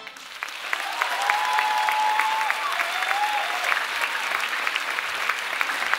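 An audience applauding as the dance music cuts off, with a couple of long held tones over the clapping in the first few seconds.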